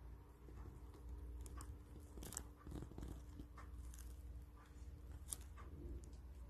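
Faint, scattered clicks and crackles of handling noise over a low steady hum, with a small cluster of clicks a couple of seconds in and a sharper click near the end.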